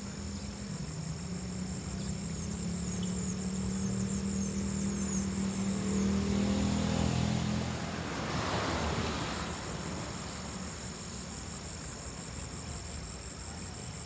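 Insects trilling steadily in high, continuous tones while a motor vehicle's engine approaches and passes by, loudest about seven to nine seconds in, then fading away.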